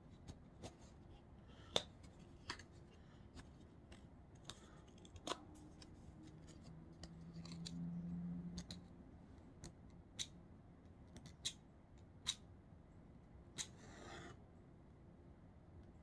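Faint clicks and small scrapes of a cardboard box of damp-climate matches being opened and a match taken out, then a short scrape and flare as a match is struck, about fourteen seconds in.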